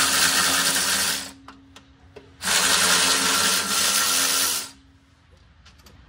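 Cordless power wrench on a long extension whirring in two steady runs, the first about a second and a half long, the second about two seconds, as it spins out a transmission bolt.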